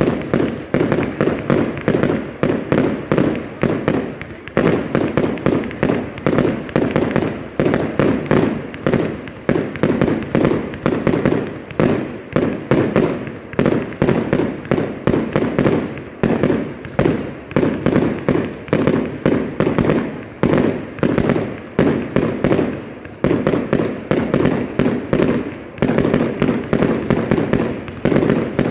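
Fireworks display going off in a fast, unbroken barrage of many bangs and crackles a second.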